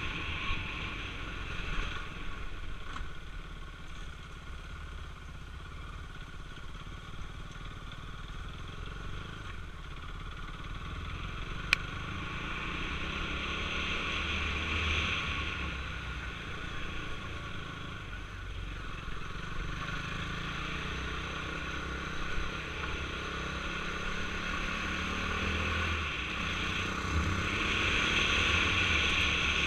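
KTM Duke 390's single-cylinder engine running steadily at low road speed on a rough dirt road, with some clatter from the bike over the bumps. A single sharp click about twelve seconds in, and the engine grows somewhat louder near the end.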